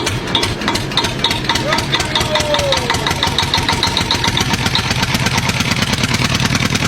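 An engine running with a fast, even beat, along with a row of short high chirps.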